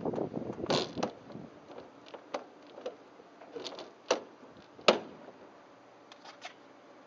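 Handling noises at the open cockpit of a Zenith STOL CH 750 light aircraft: rustling in the first second or so, then scattered clicks and a few sharp knocks of door and cabin hardware, the loudest about five seconds in.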